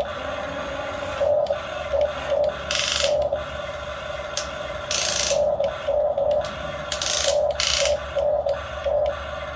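Small electric motors of a radio-controlled model excavator whining in short stop-start pulses as its controls are worked, with a few brief bursts of hissing, rushing noise in between.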